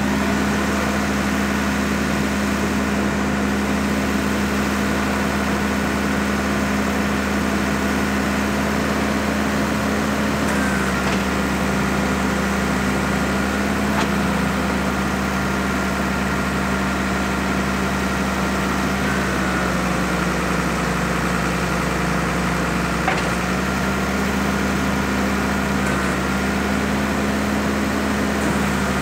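Nissan UD2000 rollback's diesel engine idling steadily, driving the hydraulics as the Jerr-Dan wheel lift is lowered and raised. The engine note dips and recovers a few times as the hydraulics take load, with a faint whine and a couple of light clicks from the lift mechanism.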